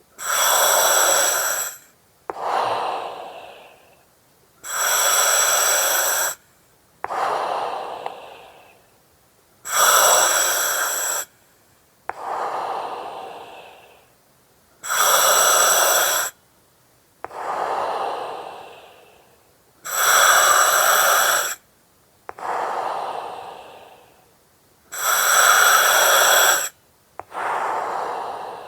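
Slow, regular breathing through an oxygen mask, about six breaths, one every five seconds or so. Each breath is a loud, hissing draw through the mask that stops abruptly, followed by a softer breath that fades out.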